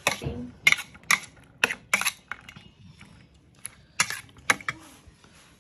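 Metal spoon clinking against a steel bowl while mixing cream into pieces of soya chaap: a run of sharp clinks about every half second, a pause of about a second and a half, then a few more.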